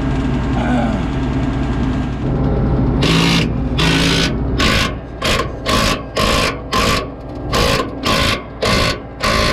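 Ratchet wrench worked in quick repeated strokes, its pawl rasping on each stroke, as a stuck bolt on a combine is turned. The strokes start about three seconds in, slow at first and then about two to three a second. A machine runs steadily underneath.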